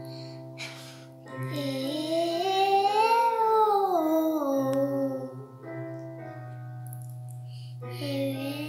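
A young girl singing a vocal warm-up on a vowel: one long note that slides up and then back down, with another starting near the end. Steady held accompaniment notes sound under her voice and change twice.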